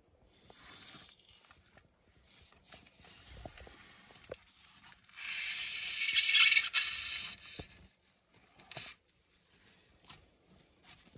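Melanistic Asian water monitors feeding on raw chicken livers and gizzards: scattered scraping, tearing and rustling as the lizards work the meat, with a louder rushing noise for about two seconds around the middle.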